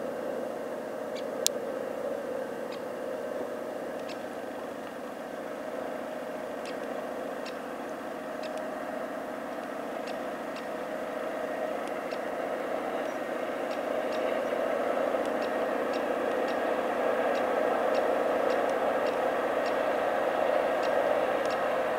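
Diesel locomotive hauling a freight train of tank wagons, its engine running steadily and growing louder over the second half as it approaches. Faint sharp clicks come through, the loudest about a second and a half in.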